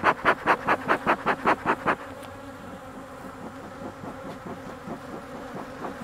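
Honeybees buzzing steadily around an open hive, agitated after alarm pheromone was released. For the first two seconds or so this is mixed with rapid whooshing puffs from a bee smoker's bellows, about five a second, which then stop.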